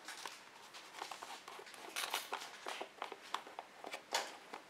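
Hands handling a plastic jug and twisting off its plastic screw cap: a run of small clicks and scrapes, loudest about two seconds in and again near the end.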